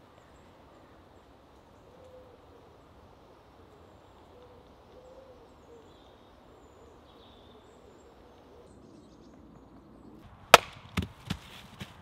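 Quiet woodland ambience with faint bird calls. Near the end an axe knocks against a wooden stump: one loud sharp strike, then three lighter knocks within about a second.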